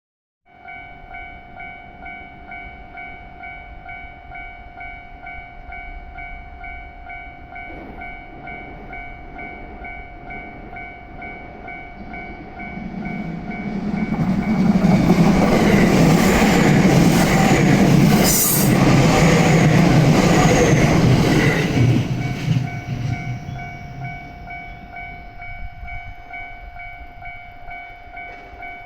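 Japanese level-crossing warning bell dinging in a steady pulse while a six-car JR West Series 227 electric train passes over the crossing. The train's rumble builds from about twelve seconds in, is loudest for several seconds, where it drowns the bell, then fades away, leaving the bell still ringing.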